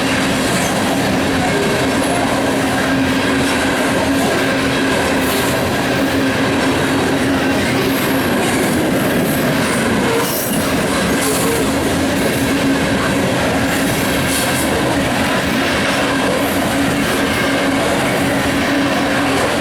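BNSF coal train's gondola cars rolling past: a steady loud rumble and wheel clatter with a steady hum under it.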